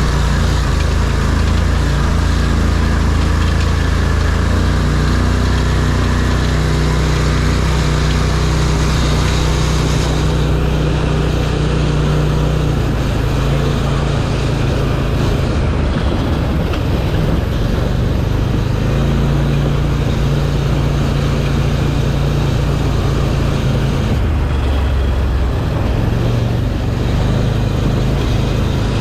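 ARGO amphibious off-road vehicle's engine running under way, its engine speed rising and falling several times, over a steady rushing noise.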